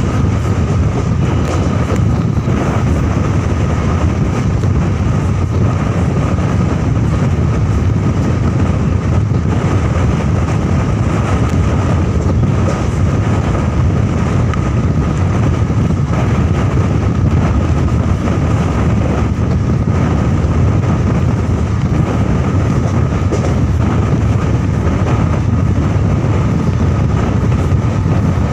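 Suburban electric train running steadily at speed, heard from its open door: a loud, even rumble of the wheels on the track with a thin, steady high whine throughout.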